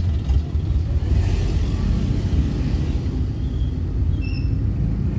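Car driving on a road, heard from inside the cabin: a steady low rumble of engine and tyres, with a brief hiss about a second in.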